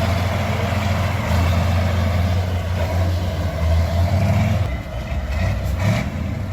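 Heavy vehicle engine running steadily with a deep hum, easing off and turning rougher about four and a half seconds in.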